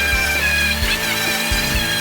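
Background music with sustained notes over a bass line.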